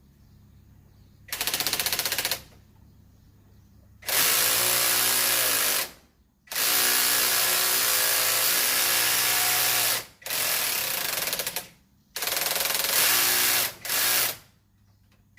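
Handheld power tool run in about six bursts of a second to a few seconds each, with a very fast rattle, working at a stubborn fastener that is hard to undo.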